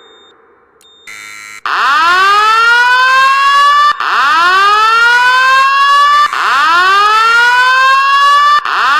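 Fire alarm sounding a repeating rising sweep tone, each sweep climbing quickly and then levelling off over a bit more than two seconds, four in a row. Before them, about a second in, comes a short steady tone.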